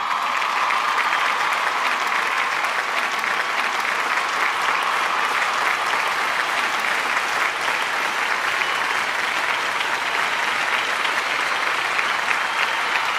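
Crowd applauding, a dense, even clatter of many hands clapping that holds steady throughout.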